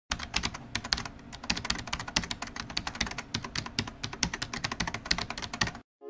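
Fast typing on a keyboard: rapid, irregular clicks, several a second, that stop abruptly just before the end.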